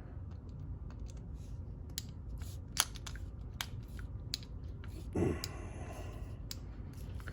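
Small, sharp metallic clicks and taps of hand tools working on a padlock while a tight part is forced out, over a steady low hum. A short louder scrape comes about five seconds in.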